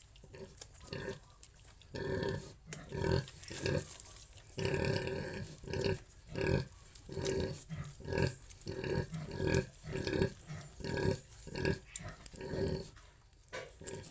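Sow grunting in a steady run of short grunts, roughly two a second, starting about two seconds in.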